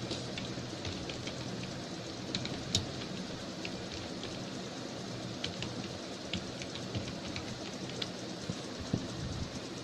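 Computer keyboard keys clicking irregularly, a few keystrokes a second, over a steady background hiss.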